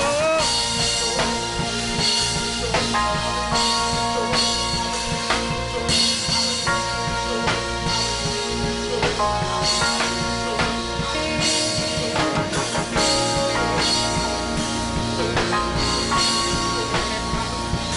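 Live worship band music: a drum kit keeps a steady beat under sustained held chords and a bass line.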